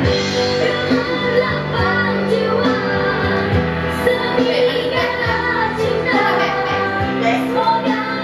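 Karaoke: a woman singing into a handheld microphone over backing music, amplified through the room's speakers.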